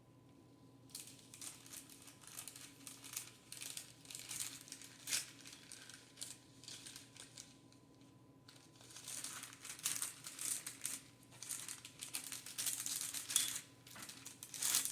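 Close-up handling noise of replacement plastic sunglass lenses and their packaging: rustling crinkles and small plastic clicks. It pauses briefly about eight seconds in, then gets busier.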